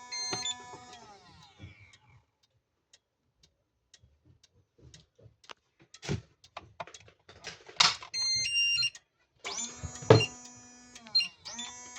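Electronic fire-alarm sounder giving a buzzing alarm tone that dies away about two seconds in. A quieter stretch of scattered clicks and a short run of high beeps follows, and the sounder starts again a little before the end.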